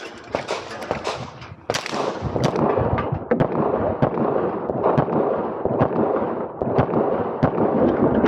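Handgun shots fired in rapid strings during an IPSC course of fire: a quick burst of shots in the first two seconds, then further shots in pairs and singles spaced through the rest, over a steady rushing noise.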